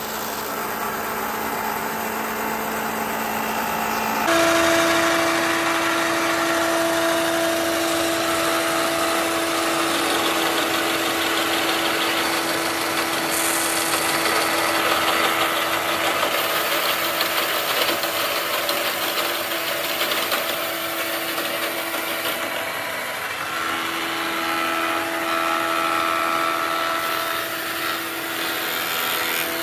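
Combination woodworking machine running steadily, its planer cutterhead spinning while a plank is fed across the planer table. The sound changes abruptly and gets louder about four seconds in.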